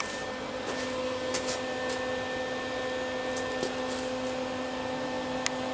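Steady mechanical hum of a small motor or fan, even in level, with a sharp click near the end.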